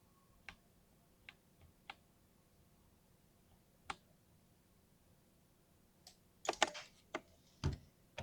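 Keystrokes on a mechanical keyboard with lubed linear switches: a few scattered single presses, then a quick run of louder strokes near the end, the last one deeper and heavier.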